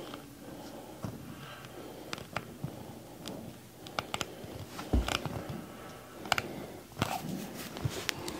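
Quiet handling sounds of hands-on bodywork with a clamp: scattered light clicks and rustles, with one dull thump about five seconds in.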